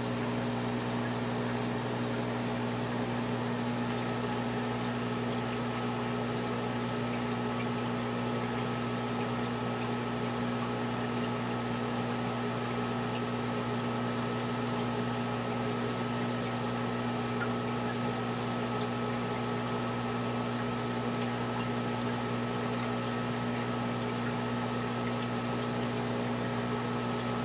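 Aquarium aeration running: a steady low electric hum with water bubbling and trickling as air stones bubble in the tank. A faint higher whine joins about four seconds in.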